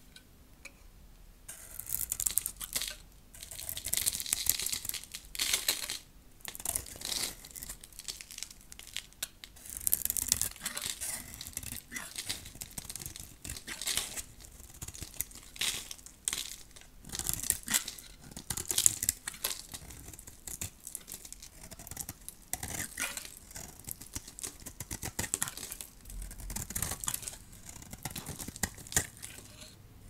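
A knife cutting and carving a bar of very dry, hard soap close to the microphone: a series of crunchy, scratchy strokes, starting about a second and a half in.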